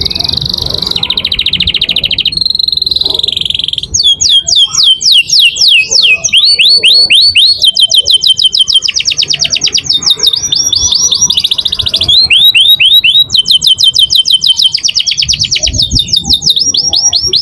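White F1 canary singing a long song of fast rolls and trills in full voice. It switches every second or two between rapid even note runs and series of notes sweeping downward.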